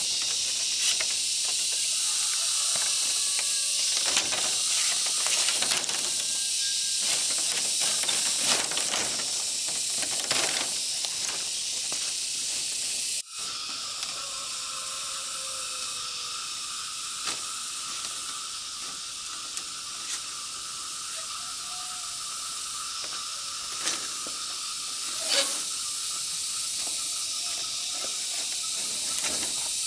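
A steady high hiss with many scattered clicks and knocks. It breaks off sharply about thirteen seconds in and resumes with a faint steady tone added, which fades near the end.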